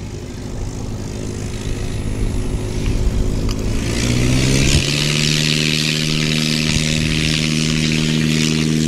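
Piper Cherokee 180's four-cylinder Lycoming engine and propeller run up to full power for a short takeoff. The engine note climbs about four seconds in, then holds steady at full throttle with strong propeller hiss as the takeoff roll begins.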